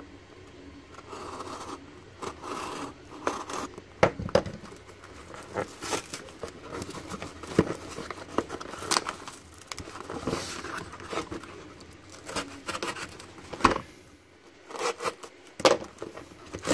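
Folding utility knife cutting the tape on a cardboard shipping box, then cardboard flaps scraping, tearing and rustling as the box is worked open by hand, with scattered sharp clicks and taps, the loudest near the end.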